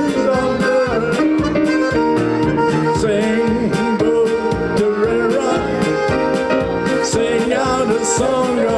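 Live polka music: accordion over keyboard backing with a steady beat.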